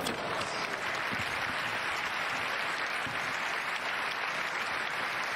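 Arena crowd applauding steadily at the end of a tennis point, after one sharp knock at the very start.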